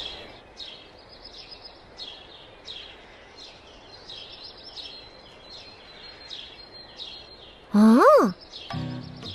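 Cartoon birdsong ambience: short bird chirps repeating about every half second over a soft hiss. About eight seconds in, a loud, short cartoon tone slides up and then down in pitch, and music starts just before the end.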